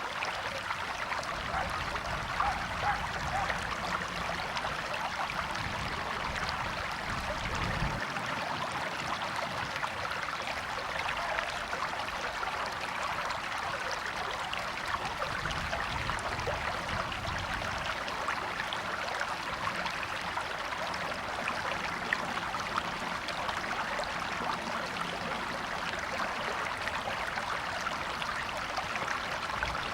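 A river flowing in a steady, continuous rush of water, with a low rumble under it that stops about eight seconds in and comes back briefly later.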